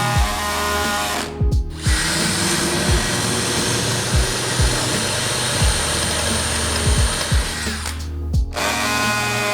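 An electric drill or similar power tool running steadily, cutting out twice for a moment, under background music with a regular beat.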